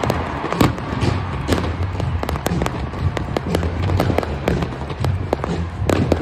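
Aerial fireworks going off in a rapid, irregular string of sharp bangs and crackling pops, several a second.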